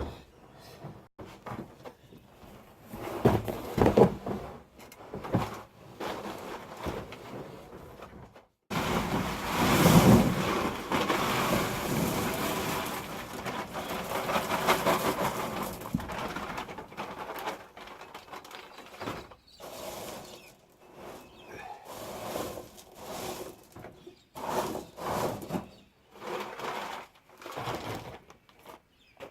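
Stones tipped into a plastic IBC tank: a long, dense rattling pour, with shorter knocks and bursts of handling before and after it.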